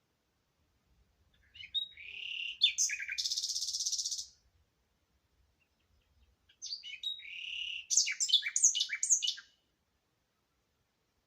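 A songbird singing two separate song phrases a few seconds apart, each a quick run of high, varied notes and slides, the first including a fast, buzzy trill.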